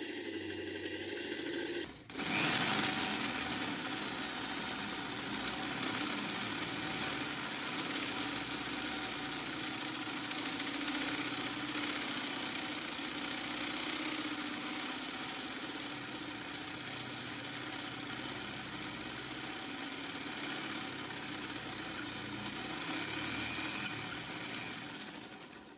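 Electric drill boring holes in a thick steel plate, its motor running steadily under load, with a brief break about two seconds in.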